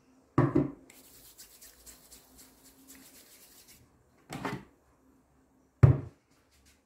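Oiled hands rubbing together, a faint rasping hiss lasting a few seconds, between short knocks of kitchenware. The loudest knock comes near the end as the stainless steel bowl of a Monsieur Cuisine Connect food processor is lifted out of its base.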